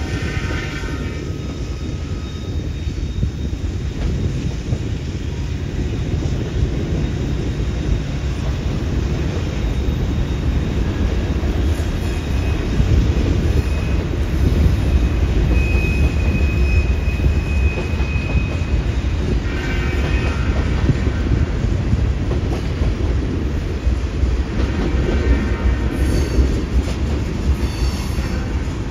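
Freight train of tank cars rolling past: a steady low rumble of wheels on rail. High-pitched wheel squeals come and go several times, near the start, between about fifteen and twenty-one seconds in, and again near the end.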